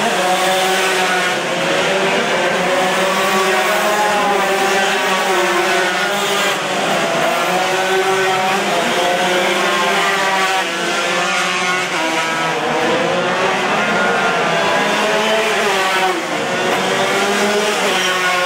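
Several Yamaha RX-King two-stroke race motorcycles running hard together, their engines overlapping and rising and falling in pitch as the riders roll the throttle on and off.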